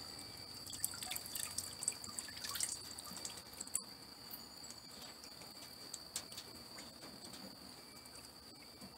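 Light splashing and dripping of water in a plastic bucket as a racing pigeon is dipped and swished in a permethrin-and-shampoo force bath. The small splashes come most often in the first three or four seconds and then thin out.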